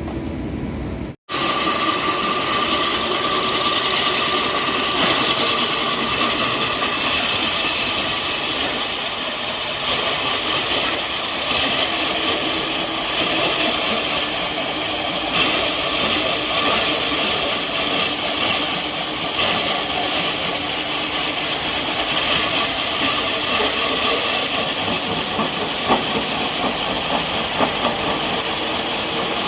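Concrete core drilling machine running, starting abruptly about a second in: a steady hiss with a thin steady whine over it.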